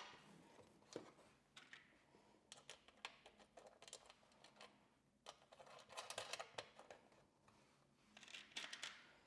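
Faint, scattered light clicks and taps of a floorboard plate being handled and fitted into place, with short bursts of small clattering.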